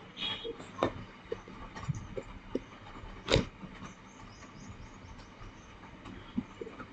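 Wooden rolling pin rolling out white craft clay on a wooden board, with scattered knocks and clicks of the pin against the board, the loudest about three seconds in.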